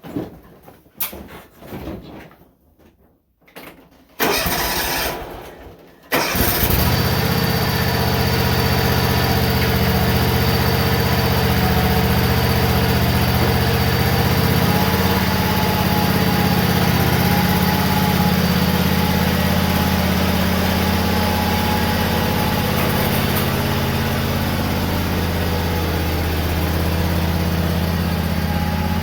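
A few knocks and rattles, then a compact tractor's diesel engine cranks for about two seconds and catches about six seconds in, settling into a steady run.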